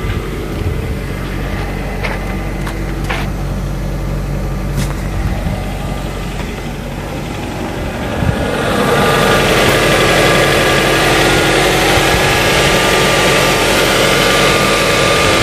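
Ford Mondeo 2.0 Duratec four-cylinder engine running at idle, with a few faint clicks in the first seconds. About eight seconds in it gets louder and brighter: a steady hiss with a held whine that does not rise in pitch.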